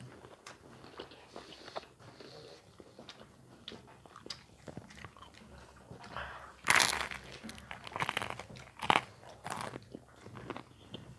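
Crunchy food being bitten and chewed close to the microphone: many small crisp crackles, with a loud burst of crunching about six and a half seconds in and several sharp crunches after it.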